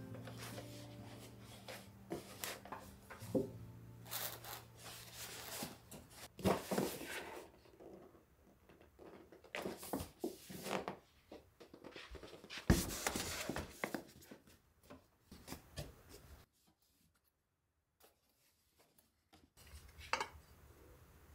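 Folded clothes being dropped into a storage box made from a paper bag: soft rustling of fabric and paper with light knocks. A low steady hum runs through the first several seconds, and there is a gap of near silence about two-thirds of the way through.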